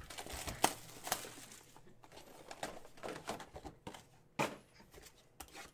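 Cardboard trading-card boxes being handled and set down on a table: a few light knocks with some rustling, the sharpest about half a second in and again past four seconds.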